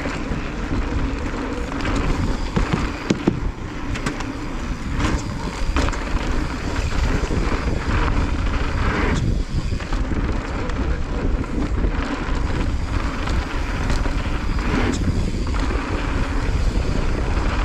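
Wind buffeting the microphone and mountain-bike tyres rolling over a dirt trail at speed, with scattered knocks and rattles from the bike over bumps.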